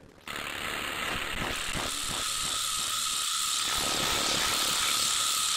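Rattle percussion sample playing alone through a bitcrusher plugin: a steady noisy shaking that comes in about a quarter second in, with a faint regular pulse through the first few seconds.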